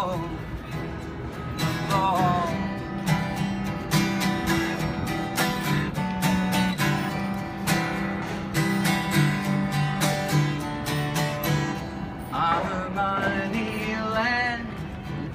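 Steel-string acoustic guitar strummed in a steady rhythm, played solo as an instrumental passage of a folk song.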